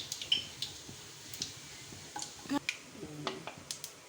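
Mustard seeds and dal spluttering in hot oil: scattered sharp pops and ticks, about a dozen, at irregular intervals.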